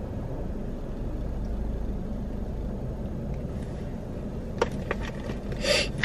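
Low, steady hum of a car idling, heard from inside the cabin, with two sharp clicks and a short rustle near the end as things are handled in the seat.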